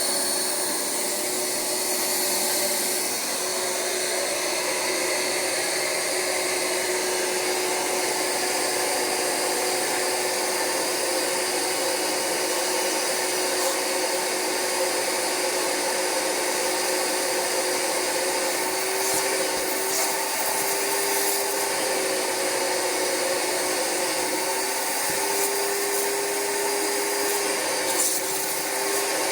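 Rug Doctor X-3 carpet cleaner running steadily, its vacuum motor whining while the Universal Hand Tool works on the upholstery. In the last third the whine rises slightly and wavers, with a few faint clicks.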